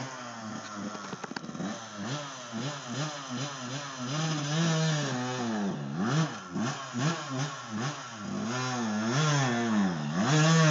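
Dirt bike engine revving up and down in repeated bursts of throttle as it is ridden up a steep rock climb, getting louder in the second half.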